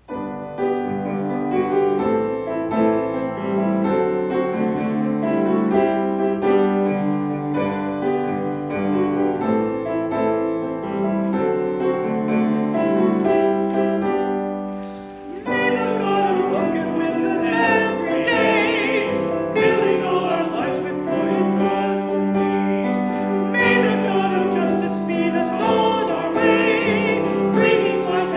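Piano playing a hymn introduction alone for about fifteen seconds, then a voice with vibrato begins singing the hymn over the piano accompaniment.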